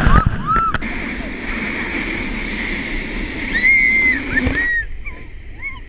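Air rushing past a glider in flight as a steady noise, with a string of short, high cries that rise and fall over it, most of them about four seconds in.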